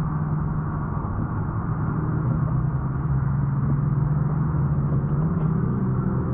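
An engine running steadily with a low hum, its pitch rising slightly about five seconds in.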